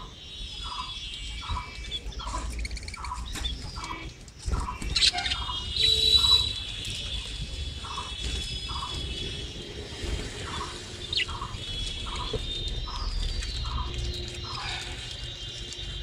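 A budgerigar flock chattering and warbling, with a short chirp repeated about twice a second and a louder squawk about five seconds in.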